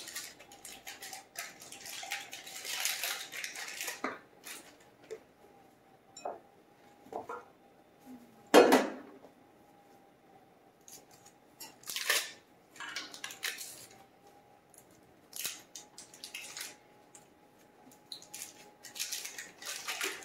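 Paper butter wrappers crinkling and peeling in several irregular bursts as sticks of butter are unwrapped. About eight and a half seconds in, a metal baking pan is set down on the counter with one sharp clunk, the loudest sound. A faint steady hum runs underneath.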